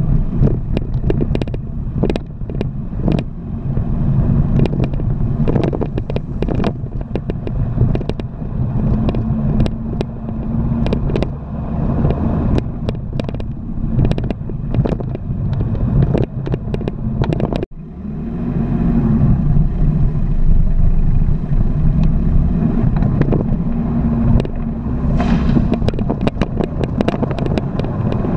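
Off-road vehicle engine running while driving over a rough dirt and gravel track, with frequent knocks and rattles from the bumpy ground. The sound breaks off sharply for a moment about two-thirds of the way through, then the engine goes on.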